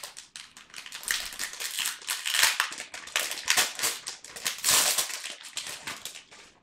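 Foil trading-card pack wrapper being torn open and crinkled by hand, a run of loud crackling rustles with the loudest crinkles about two and a half and five seconds in, stopping abruptly at the end.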